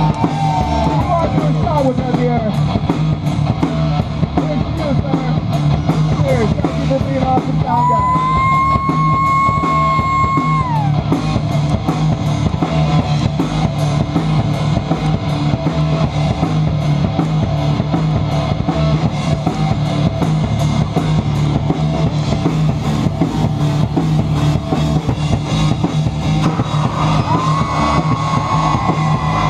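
A Celtic rock band playing live: electric guitars over a drum kit keeping a steady beat, with one long held note about a third of the way through.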